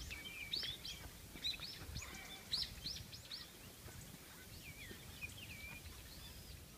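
Small birds calling in bare winter trees: a quick run of short, high chirps in the first few seconds, then a few wavering calls about five seconds in, over faint outdoor background noise.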